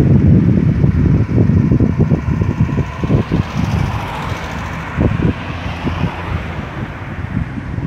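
Wind buffeting the microphone in irregular gusts, with a car driving past on the road around the middle.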